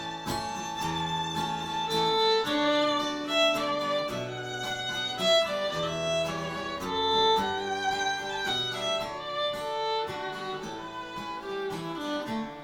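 Instrumental break in a folk song: a fiddle plays the melody over guitar accompaniment.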